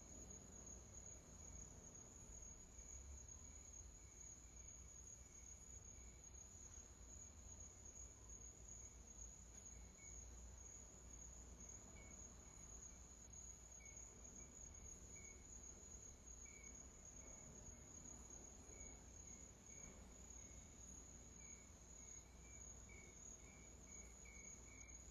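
Faint, steady trilling of crickets, with softer scattered chirps over it.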